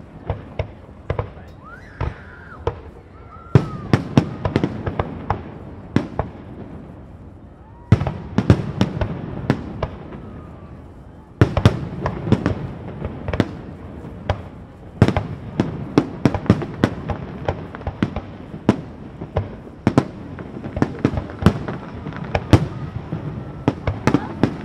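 Fireworks display: many sharp bangs of aerial shells bursting, with scattered single bangs at first and dense volleys that break out about four, eight and eleven seconds in.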